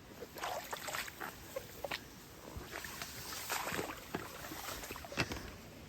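Footsteps wading through shallow floodwater in shoes: an uneven series of splashes and sloshes over a low water hiss.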